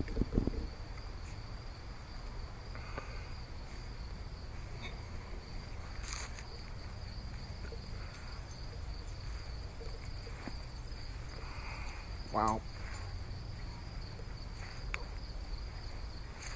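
Crickets trilling steadily in one continuous high-pitched tone, over a low outdoor hum. About twelve seconds in, a short wavering voice-like sound stands out briefly.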